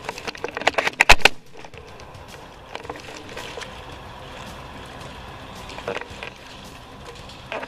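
A quick run of sharp clicks or cracks about a second in, then a steady hiss with a few faint ticks.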